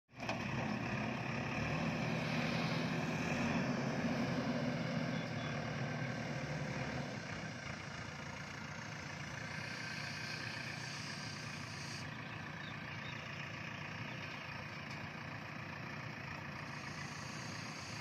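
Diesel engine of a JCB backhoe loader running, louder for the first five to seven seconds, then settling to a quieter, steady run.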